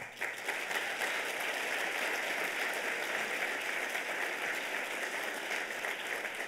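Audience applauding steadily at the end of a talk, starting the moment the speaker says thank you and tapering off slowly near the end.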